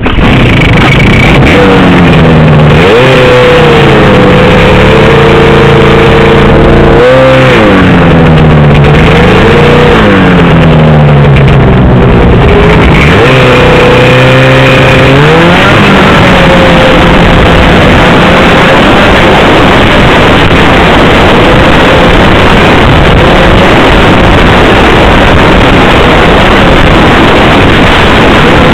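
Snowmobile engine under hard throttle, very loud. Its pitch rises and falls several times through roughly the first fifteen seconds as the throttle is opened and eased, then it runs steadily at speed under a dense rushing noise.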